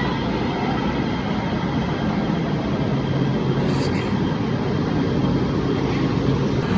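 LA Metro light rail train running: a steady low rumble that holds an even level throughout.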